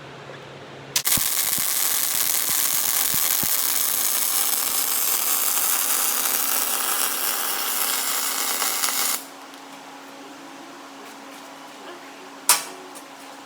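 MIG welding arc buzzing and crackling as a bead is run on a 3-inch solid steel bar. It starts about a second in and cuts off suddenly after about eight seconds. A single sharp click comes near the end.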